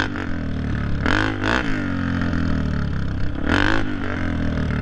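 Dirt bike engine running close up as it is ridden, the pitch rising and falling with the throttle, with several short blips of revving: one right at the start, two about a second in, and another past three and a half seconds.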